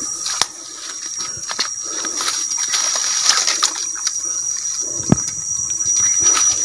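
Footsteps rustling and splashing through wet swamp grass, with scattered snaps of stems and a sharp knock about five seconds in, over a steady high-pitched drone.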